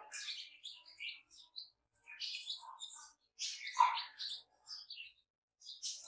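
Newborn chicks peeping in quick, high chirps, with a louder, lower call just before the middle.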